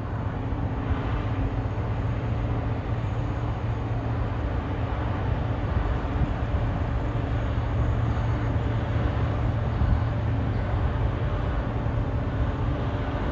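A large engine running steadily, a constant low hum with a second steady tone above it, over a continuous wash of noise.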